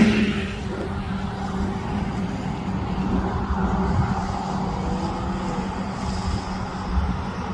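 Ford police SUV driving away down the road, its engine and tyre noise steady and moderate.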